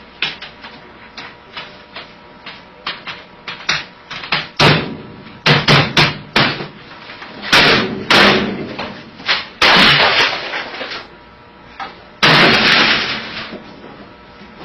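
Irregular run of hard knocks and bangs, things being struck and slammed on an office desk, with two longer, harsher crashes in the second half.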